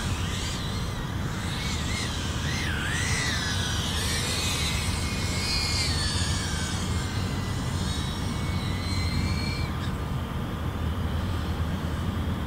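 FPV drone's motors and propellers whining, the pitch swooping up and down as the throttle changes, over a steady low rumble. The whine fades out about ten seconds in.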